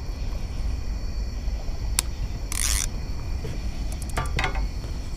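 A conventional fishing reel and rod being handled as a catfish bite is taken up: a sharp click, a short rasp, then a quick run of clicks a little after four seconds in, over a steady low rumble.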